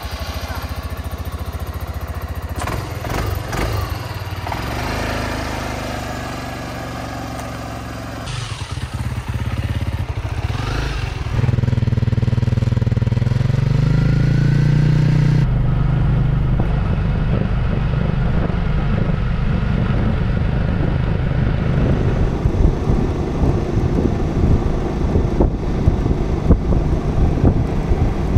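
Motorcycle engine sound from a Suzuki Burgman 400 scooter and another bike: first an engine running steadily, then a louder engine note rising in pitch as a bike pulls away and accelerates, then steady engine and choppy road rumble while riding along. The sound changes abruptly a few times.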